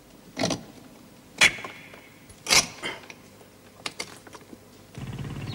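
A metal hand tool chipping at a stone wall: several sharp, irregular knocks, the loudest about a second and a half and two and a half seconds in. Near the end a steady low hum comes in.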